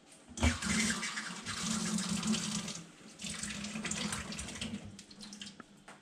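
Water running and splashing in two stretches, each about two and a half seconds long, with a short break near the middle.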